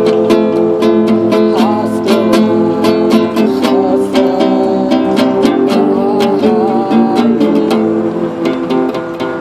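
Acoustic guitar strummed steadily, with chords ringing under quick repeated strokes.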